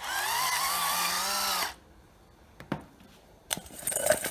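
Small electric pepper or salt grinder motor whirring for under two seconds, its pitch rising slightly, then switching off. A couple of clicks follow, and light clinking starts near the end.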